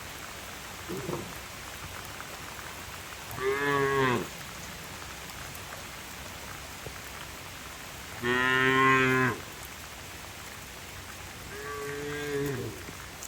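Cattle mooing three times, the middle call the loudest and longest, over the steady hiss of heavy rain.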